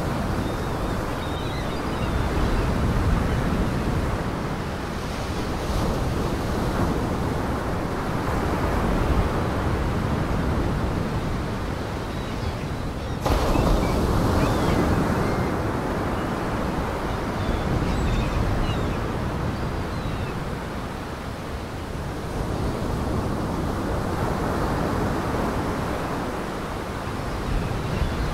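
Surf breaking and washing in, swelling and ebbing every few seconds, with wind. The sound jumps abruptly about halfway through.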